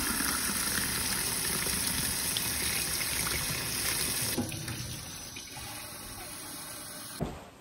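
Kitchen tap running water into a ceramic mug, filling it. About four and a half seconds in the sound drops to a quieter steady hiss, and a short click comes near the end.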